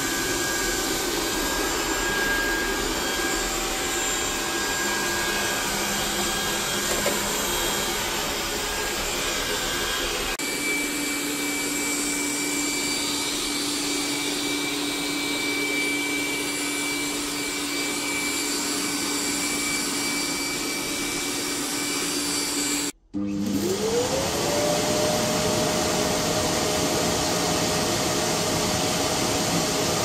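Xiaomi Robot Vacuum X10 running in Strong suction mode, then in Turbo mode with a steady high whine over the fan noise. After a short break about two-thirds of the way through, the self-emptying dust collection dock starts up: its motor whine rises in pitch, then holds steady.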